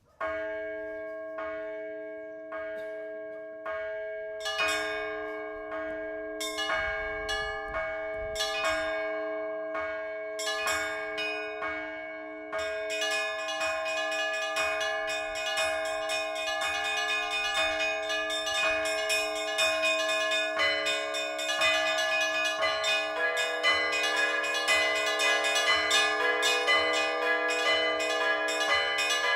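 Orthodox church bells rung by a bell ringer: slow strokes on the larger bells every second or two, with smaller bells coming in, then about twelve seconds in the small bells break into rapid, continuous chiming over the big bells' ringing tones, a full peal.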